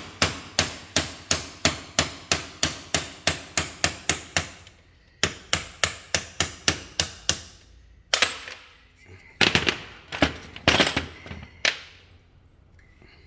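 Hammer blows driving a ball bearing out of a 1948 Holden FX differential housing: quick, even metal-on-metal taps about four a second, a short pause, then a second run of taps. A few louder, irregular metallic clanks and clatters follow near the end.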